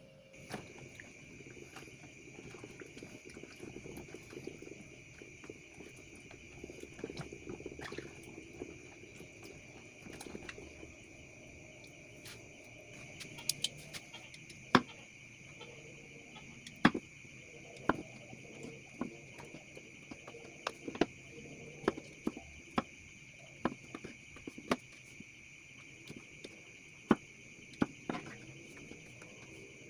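Kitchen knife slicing button mushrooms on a wooden cutting board, with sharp knocks of the blade on the board about once a second through the second half. Under it runs a steady high chirring of crickets.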